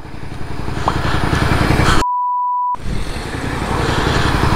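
Motorcycle engine and road noise on a helmet camera. About two seconds in, the audio is cut for roughly 0.7 s and replaced by a steady 1 kHz censor bleep covering a word.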